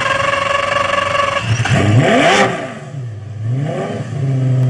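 Sports car engine sound effect: a held high engine note, then revving up with a whooshing sweep about two and a half seconds in, dropping away, rising again and settling into a low steady note near the end.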